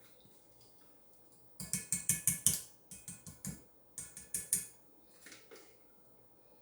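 A utensil scraping out the last of the food from a bowl, in three quick runs of strokes about a second apart, then a fainter one.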